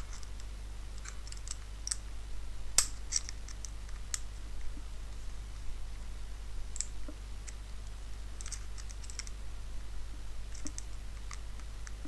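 Small, sparse metallic clicks and scrapes of a precision screwdriver tip working at the back of a brass Abloy Easy lock cylinder while taking it apart, the sharpest click about three seconds in.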